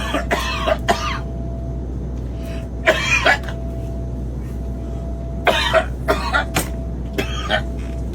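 A man coughing in several harsh fits from a tickle in his throat, over the steady low hum of an airliner cabin.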